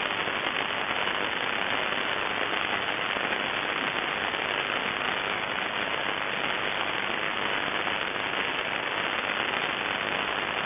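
Steady static hiss with nothing standing out of it.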